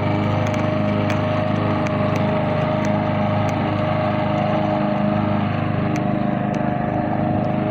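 Push lawn mower's engine running steadily at a constant speed, with a steady whine over the engine note and a few faint ticks.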